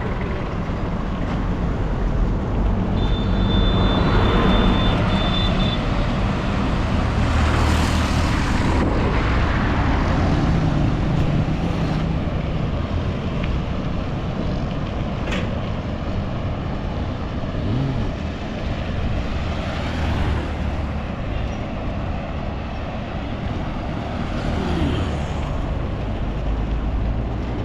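Busy road traffic: cars and trucks passing on a main road, a continuous rumble that swells as vehicles go by. A thin, steady high tone sounds for about three seconds near the start.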